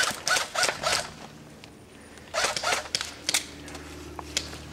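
Airsoft guns firing quick strings of shots, about six a second, in two volleys about a second long with a pause of roughly a second and a half between them.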